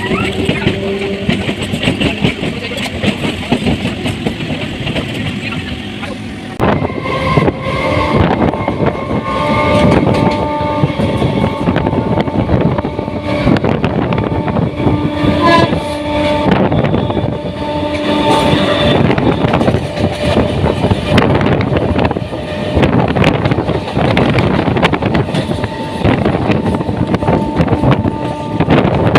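Suburban electric local train running on the track: wheels clatter over the rail joints and the carriage rattles, getting louder about six seconds in. A train horn sounds for several seconds in the middle.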